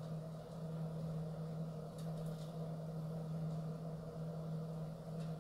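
Steady low mechanical hum, with a few faint clicks about two seconds in and again near the end.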